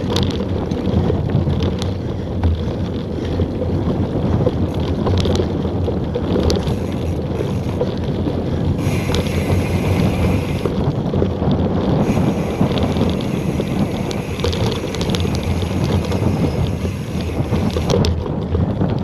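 Wind buffeting the action camera's microphone on a fast mountain-bike descent over a dirt trail, over the rumble of tyres on dirt and many small rattles and clicks from the bike over bumps. A higher hiss comes in for about two seconds midway.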